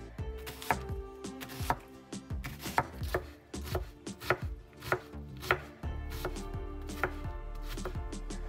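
Knife chopping vegetables, sharp irregular strokes about two a second that thin out near the end, over background music.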